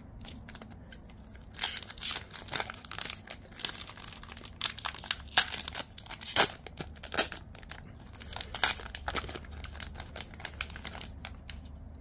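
Foil wrapper of a Select AFL Footy Stars 2024 trading-card pack being crinkled and torn open by hand: a long run of sharp crackles and rips, loudest around the middle.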